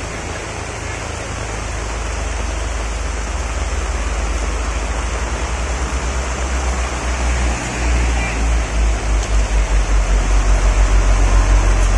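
Steady rushing of heavy rain and runoff water pouring over the edge of a landslide-cut road. Under it, a low rumble swells and turns into a regular pulsing about eight seconds in, the loudest part.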